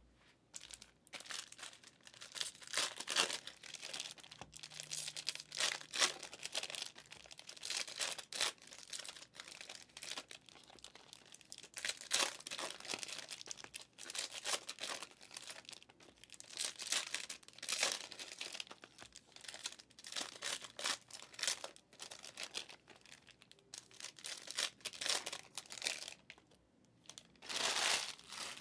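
2023 Prizm Draft Picks trading cards being handled: flipped through, slid and stacked against each other, with crinkling of pack wrappers, in irregular short bursts. There is a longer burst near the end.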